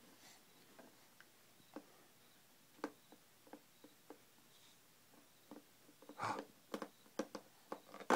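Scattered light clicks and taps of plastic toy pieces against a clear plastic jar and its slotted lid as a baby handles them, coming more often near the end.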